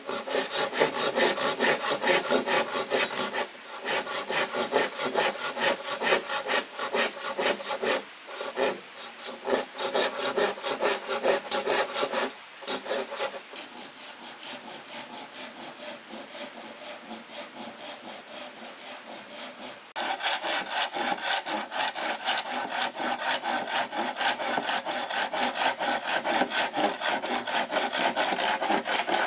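Hand saw cutting with quick, steady back-and-forth strokes, stopping briefly a few times. The strokes go quieter for several seconds, then suddenly louder again about two-thirds of the way through.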